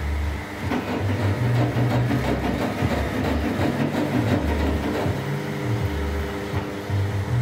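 A Novalight Divine 1200 HMI mirror effect running, with the steady hum of its cooling fans and motors. Low tones under the hum change pitch every half second or so, and there is a rattly stretch in the middle.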